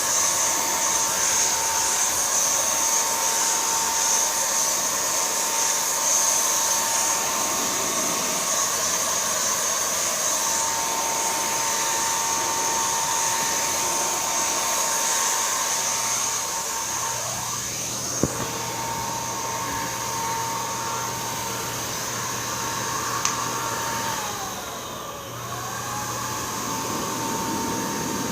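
Electric paint sprayer's turbine motor running steadily with a blowing whine. Its pitch dips briefly and recovers near the end, and there are two sharp clicks partway through.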